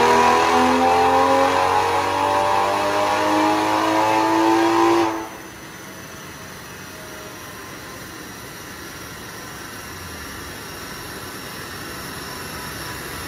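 BMW M340i's B58 turbocharged straight-six on a chassis dyno at the end of a full-throttle pull: the engine note climbs steadily in pitch as the revs rise. About five seconds in the throttle closes and the sound drops sharply to a low, steady noise with a faint falling whine as the car winds down on the rollers.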